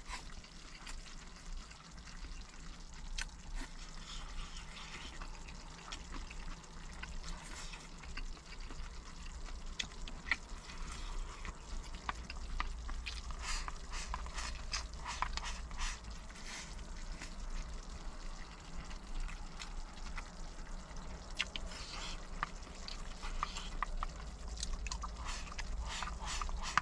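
A person eating a potato and beef rice bowl: scattered small clicks and wet chewing sounds, fairly quiet, over a faint low hum.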